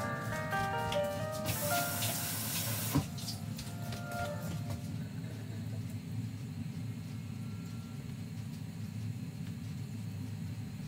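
Background music, a melody of short notes that stops about five seconds in, over the steady hiss of water running from a tap. A louder rush of water comes about two seconds in and ends with a sharp click about a second later.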